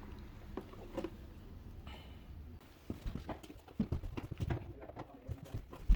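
Irregular clicks and knocks of hard objects being handled, growing busier about halfway through, with one sharp knock near the end.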